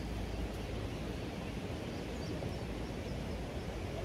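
Steady rush of a flowing river, with wind rumbling on the microphone and a few faint high chirps a little past halfway.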